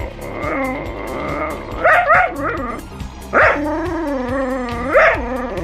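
Jack Russell terrier barking in short yips: a quick run of two or three about two seconds in, another at about three and a half seconds, and one near the end. A long wavering whine sits between the last two barks, and music with a steady beat plays underneath.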